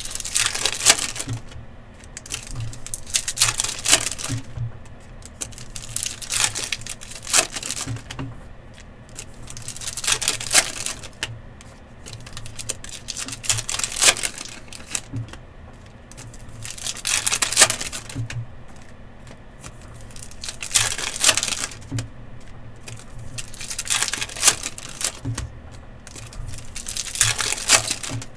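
Foil wrappers of Donruss Optic football hobby packs being torn open and the cards handled, a short crinkly ripping and clicking burst about every three to four seconds.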